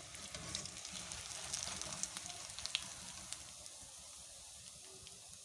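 Hot oil sizzling and crackling around breaded chicken drumsticks deep-frying, with a few sharp clicks. The sizzle quietens about three seconds in as the drumsticks are lifted out of the oil on a wire skimmer.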